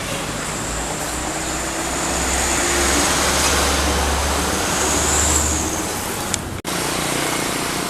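A heavy road vehicle passing close by: deep engine rumble and tyre noise build to a peak past the middle, then ease off. The sound cuts out for an instant about two-thirds through.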